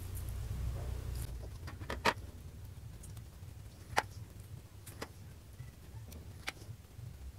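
Small calamansi lime halves squeezed by hand over food: a few scattered soft clicks and drips, the sharpest about two and four seconds in, over a low steady hum.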